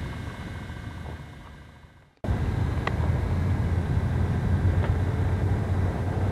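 A vehicle engine running with a steady low hum, which cuts in abruptly about two seconds in as the earlier sound fades out.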